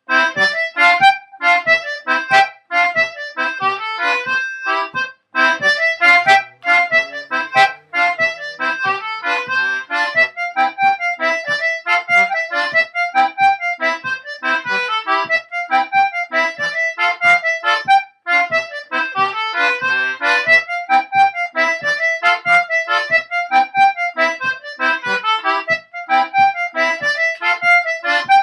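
C/G anglo concertina playing a morris dance tune in the Wheatley tradition: a repetitive, vigorous melody of short, detached notes over steady, regular bass notes.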